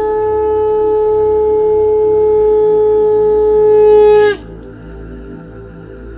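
A single long blown horn-like note, held steady for about four seconds, dipping slightly in pitch as it cuts off. Quieter background music runs underneath and carries on after it.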